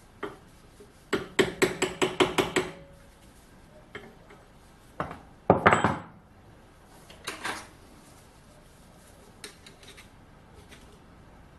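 Metal-on-metal taps and clinks from steel lathe headstock parts being worked apart with hand tools: a quick run of about eight light ringing taps about a second in, then scattered single knocks and short clusters.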